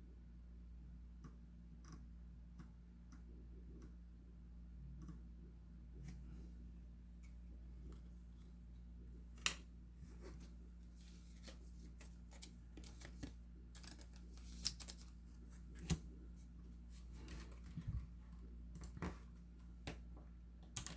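Sparse light clicks and taps of a computer mouse and keyboard over a low steady hum, the clicks coming more often in the second half.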